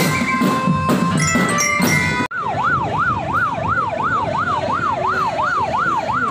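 Children's marching band playing drums and bell lyres, then, after an abrupt cut, a police patrol vehicle's siren sounding a fast yelp, rising and falling about three times a second.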